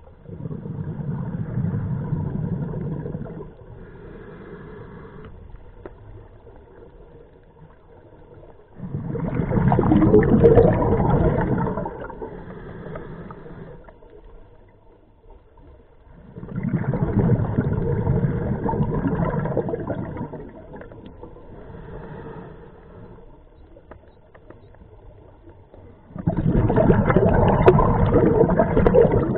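Scuba diver's own regulator breathing underwater: four long bubbling exhalations about eight seconds apart, with a shorter, quieter inhalation hiss between them.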